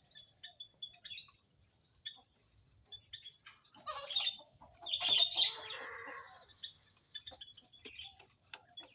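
Small birds chirping in short, scattered notes, with a louder, harsher clucking call running from about four to six and a half seconds in.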